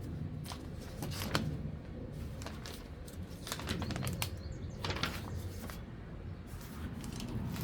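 Irregular clicks, knocks and rustles of hands handling a new chainsaw and its packaging, with a few faint bird chirps in the background.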